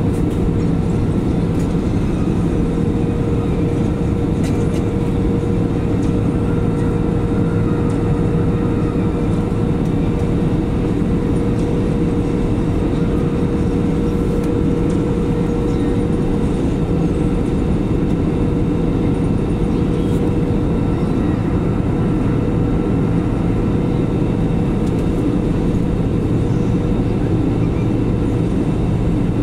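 Jet airliner cabin noise at cruise altitude: the steady drone of the turbofan engines and airflow, with a constant mid-pitched hum running through it.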